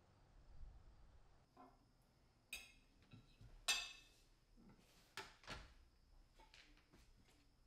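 Dishes and cutlery clinking as a plate is handled at a kitchen table: a handful of short clinks and knocks, the loudest, ringing one about three and a half seconds in.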